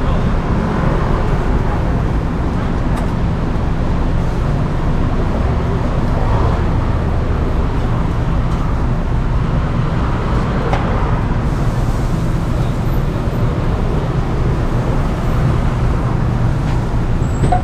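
A steady low rumble of background noise, with faint, indistinct voices now and then.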